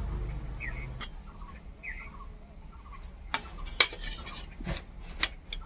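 Steel spoon clinking and scraping against a steel plate while cream is served onto glasses of lassi: about half a dozen sharp clicks, the loudest near the middle. A low hum stops about a second in, and a few faint bird chirps sound behind.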